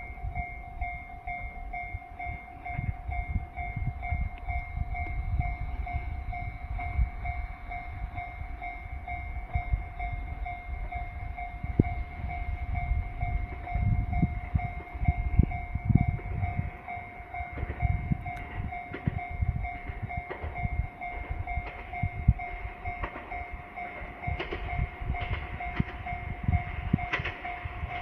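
Japanese railway level crossing warning bell ringing steadily in a two-tone ring over a low rumble as a train approaches; in the last few seconds a quickening run of sharp clacks comes in as the train draws near.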